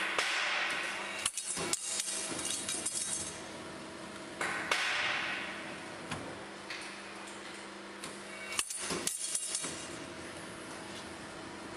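Sheet-metal ring-forming machine running with a steady hum while steel strip hisses and scrapes through its forming rollers in two stretches. Sharp metallic clanks come a couple of seconds in, and a louder cluster comes about nine seconds in, as the formed ring is cut off and falls away.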